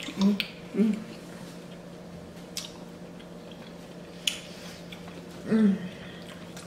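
People eating at close range: chewing with short hummed "mm" sounds, three near the start and one about five and a half seconds in, and a couple of sharp mouth-smack clicks in between.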